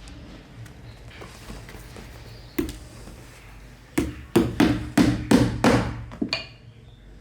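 Hand hammer striking in saddle making: a single blow, then a quick run of about eight blows at roughly three a second.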